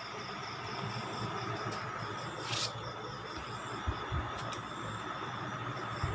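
Night ambience of crickets chirping in a steady pulsing rhythm over a constant hiss, with a brief rush of noise about two and a half seconds in and a few dull low thumps near the middle and at the end.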